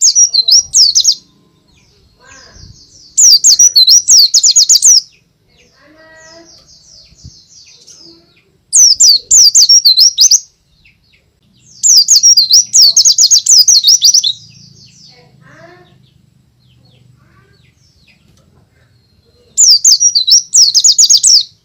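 White-eye (pleci, Zosterops) singing loudly in five bursts of fast, high warbling, each one to two seconds long, with softer twittering between them.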